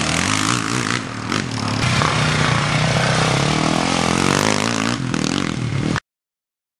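Racing ATV (quad) engines revving, their pitch rising and falling as they accelerate and ease off, with some clatter; the sound stops abruptly about six seconds in.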